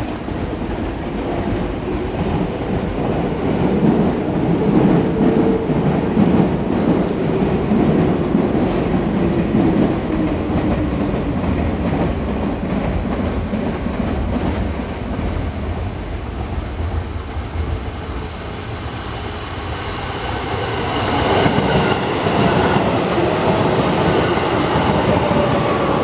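Train running through a station, its wheels clicking rapidly over the rail joints, with whining tones that slide up and down in pitch. It grows louder again about 20 seconds in, with higher whines.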